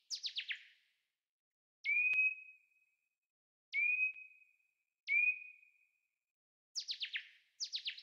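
Synthesized bird chirps from Ableton's Operator FM synth, played through reverb and delay. A burst of four quick falling chirps opens; then three separate longer calls each drop sharply and hold a steady whistled note before fading. Two more bursts of quick falling chirps come near the end.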